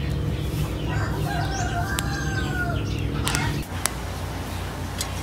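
A rooster crows once, one long call, over a steady low rumble that cuts off abruptly about three and a half seconds in. A few sharp crackles from the wood fire are heard.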